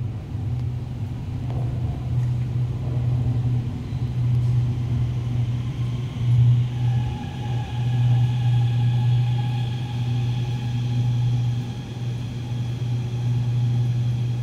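Guangzhou Metro Line 21 train pulling into the station behind platform screen doors: a low steady rumble throughout, with the traction motors' whine setting in about six seconds in and holding a steady pitch as the train draws alongside.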